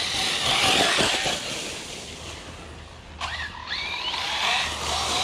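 Arrma Outcast RC truck running, with tyre and drivetrain noise and an electric motor whine that rises briefly a little past halfway. The driver takes the truck's center differential to be broken.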